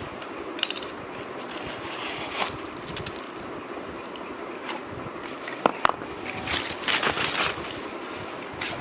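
Household objects being handled by hand: scattered light clicks and rustles, with a sharp clink a little past halfway and a burst of rustling near the end.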